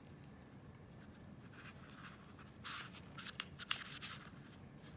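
Faint rubbing and scraping from handling and drying an emptied Sig Sauer P229 pistol magazine body, in short scattered strokes with one sharper click.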